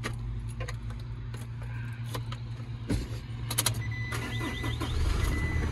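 2019 Isuzu NPR HD's 5.2-litre turbo diesel being started: a click about three and a half seconds in, then the starter cranking under a steady high tone, and the engine catches easily and runs near the end.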